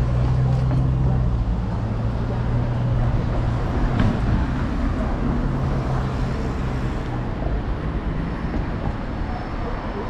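City street traffic: a nearby vehicle engine running with a steady low hum that fades out about seven seconds in, over general road noise, with a single sharp click about four seconds in.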